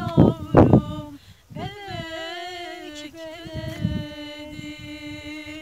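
Unaccompanied singing voice: a few sliding notes at the start, then after a short break one long held note to the end. Low wind rumble on the microphone underneath.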